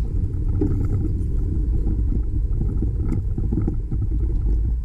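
Steady low rumble of wind buffeting the microphone of a camera riding on a moving bicycle, with faint scattered light clicks and rattles.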